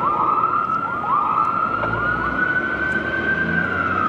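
Fire engine's electronic siren sounding a string of short, rapid rising whoops, which settle into a long high wail that starts to fall near the end.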